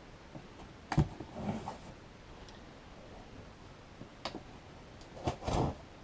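A box being opened and handled: a sharp knock about a second in, a short scrape, then two more knocks and a brief rustle near the end.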